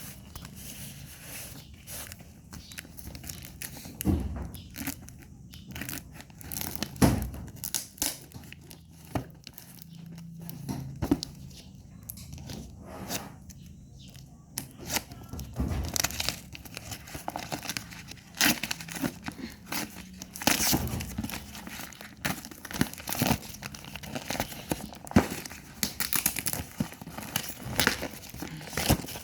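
Packaging being torn open and crinkled by hand during an unboxing, with irregular crackles, rustles and small knocks.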